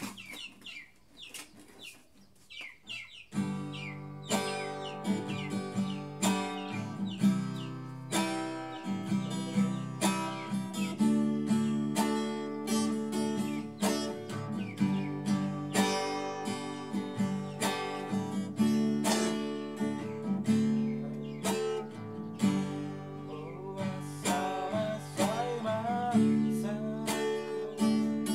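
Classical guitar played steadily, plucked notes and strummed chords, starting about three seconds in after a few clicks and knocks.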